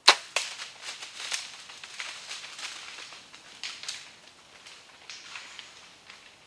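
A sharp crack as the bow is shot and the arrow strikes a whitetail buck. It is followed by the hit deer running off through brush: irregular crackling, rustling footfalls that fade over several seconds.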